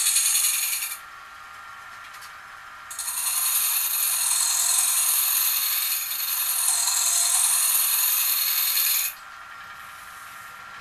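Bowl gouge cutting a spinning red oak bowl blank on a wood lathe, a loud hissing scrape of shavings coming off. One cut ends about a second in and a longer one runs from about three to nine seconds; in the gaps only the lathe is heard, running with a steady whine.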